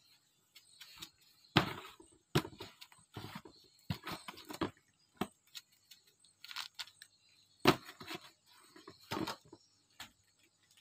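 Hands salting raw fish in a large basin: a plastic salt packet crinkling and being shaken, and fish and hands rubbing and knocking against the basin. The noises come in irregular short bursts, with two sharper knocks, one about a second and a half in and one near the end.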